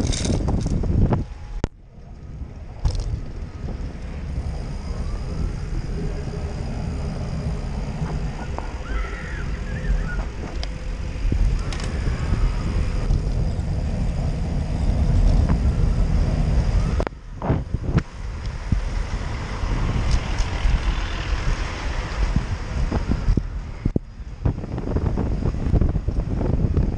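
Wind rushing over the microphone and tyre rumble from a bicycle riding on pavement, a steady rough noise. It drops away briefly about two seconds in and again about seventeen seconds in.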